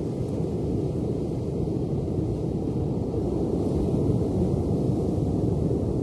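Ocean surf: a steady low rumble of breaking waves, swelling slightly about four seconds in.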